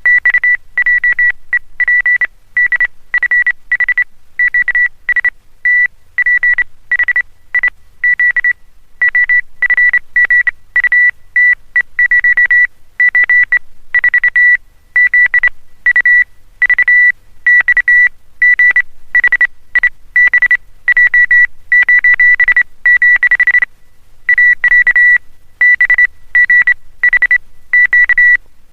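Morse code message keyed on an oscillator: one high-pitched beep tone switched rapidly on and off in fast dots and dashes, with a couple of slightly longer breaks between groups.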